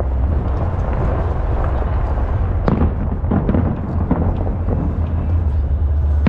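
Aerial fireworks display, shells bursting in a deep steady rumble. From a little under halfway, a quick run of sharp bangs and crackles starts.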